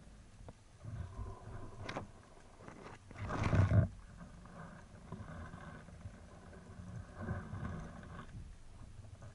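Muffled underwater noise picked up through a camera housing on a speargun, with a low hum running through most of it and one loud burst about three seconds in.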